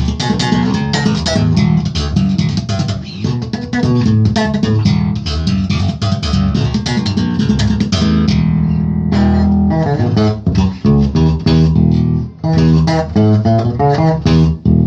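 Electric bass guitar played in a fast funk line of short, sharply attacked notes, with a brief break a little after 8 seconds and another short pause around 12 seconds in.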